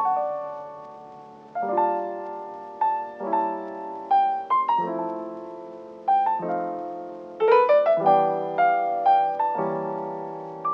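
Background music: slow, gentle piano playing chords every second or two with a melody line on top, each note fading after it is struck.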